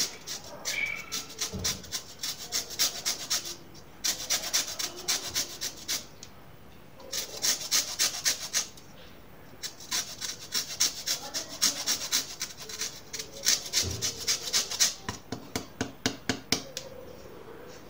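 Lemon peel being grated on a small handheld metal grater: quick rasping strokes, several a second, in bursts separated by short pauses.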